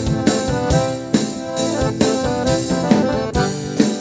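Giustozzi accordion playing a melodic instrumental lead with the band, sustained reedy notes changing in a tune over light drum hits.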